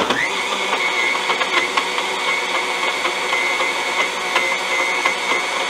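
Countertop blender starting up abruptly and running steadily at speed, crushing ice cubes in a water-based shake, with scattered clicks of ice striking the jar over the motor whine.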